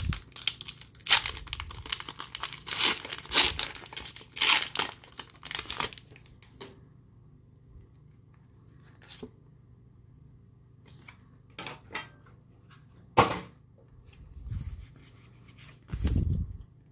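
Pokémon Shining Fates booster pack being torn open, its foil wrapper tearing and crinkling noisily for about the first six seconds. Then comes quieter handling of the trading cards as they are drawn out and squared up, with a few sharp snaps and a low thump near the end.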